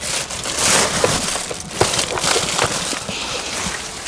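Piled household rubbish crunching and crackling underfoot as someone clambers over it, with irregular sharp cracks.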